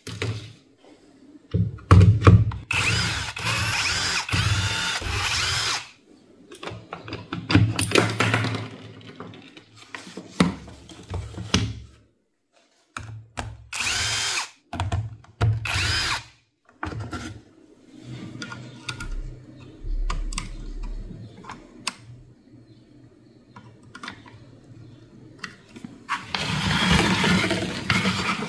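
A small electric power tool motor running in several separate bursts, each lasting from under a second to a few seconds, with clicks and handling noise between runs.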